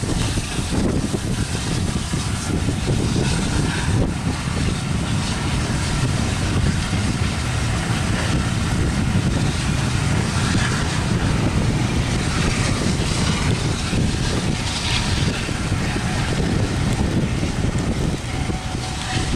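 Passenger coaches of a steam-hauled train rolling past at speed: a loud, steady rumble of wheels on rails, with a few faint knocks.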